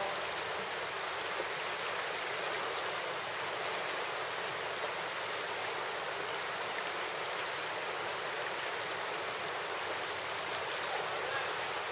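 Steady rushing of a river's flowing water, an even hiss with no breaks.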